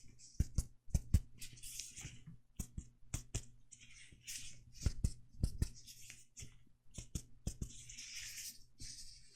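Fingers tapping in quick pairs, as in finger-on-finger percussion of the chest, a dozen or so taps with short pauses between, and soft high hissing brushes in between.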